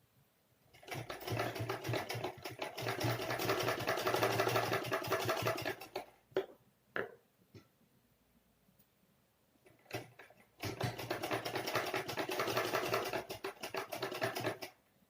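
Sewing machine stitching a net panel onto a kurti neckline, pinned fabric sewn along the edge. It runs in two stretches of about five and four seconds, with a few short clicks in the pause between them.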